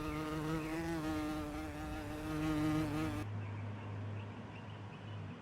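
A steady, slightly wavering buzzing drone that cuts off suddenly about three seconds in, followed by a faint low hum.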